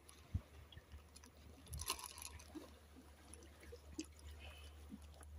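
Faint scattered crunches and clicks of people snacking on chips, over a low steady hum.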